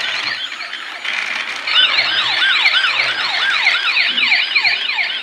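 Battery-powered toy police car's electronic siren sounding in quick, repeated up-and-down pitch sweeps, several overlapping, about three or four a second. It drops briefly about a second in, then carries on.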